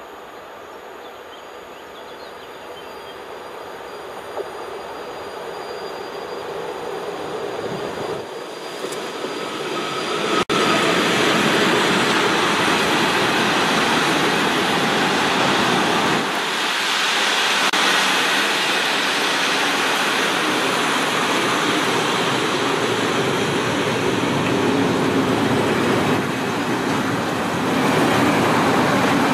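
Freight train hauled by a Škoda 59E (class 182) electric locomotive approaching, growing steadily louder over about ten seconds, then a long string of open coal wagons rolling past close by with a steady noise of wheels on rails.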